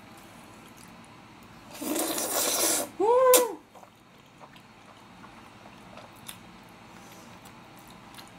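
A loud slurp of black-bean-sauce noodles lasting about a second, starting about two seconds in. It is followed at once by a short hummed 'mm' whose pitch rises and falls, and then only faint small clicks.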